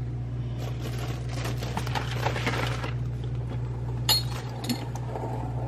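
Raw chicken being dredged and dipped in glass bowls: a soft rustling scrape for the first few seconds, then a sharp clink of glass about four seconds in and a lighter one just after, over a steady low hum.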